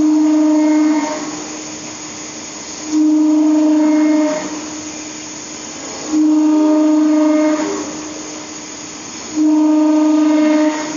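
CNC lathe turning in repeated cutting passes: a steady pitched tone, likely tool squeal or chatter as the tool engages the work, comes on sharply four times, each lasting about a second and a half and about three seconds apart, over a constant hiss from the running machine.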